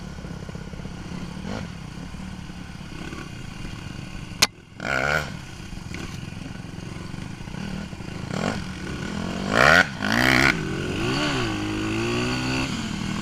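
Dirt bike engine running on an off-road trail and revving up and down, heard from a helmet-mounted camera. A sharp click comes about four seconds in, with louder bursts of throttle just after it and again around ten seconds in.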